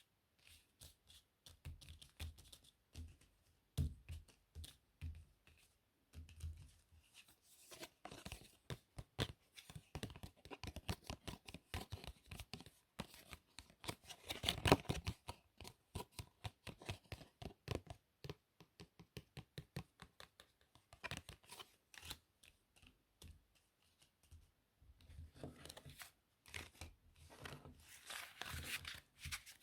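Playing cards being handled and shuffled: rapid crisp flicks and snaps of card edges, sparse at first, then busiest in the middle and again near the end.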